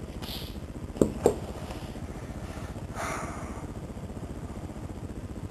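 Steady low mechanical rumble like a small motor running, with two sharp knocks close together about a second in and a short hiss about three seconds in.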